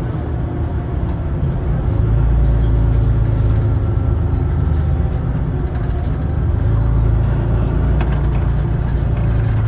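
City bus driving, heard from inside: a steady low engine and road rumble that grows louder about two seconds in, with a faint whine above it and a brief run of light clicking near the end.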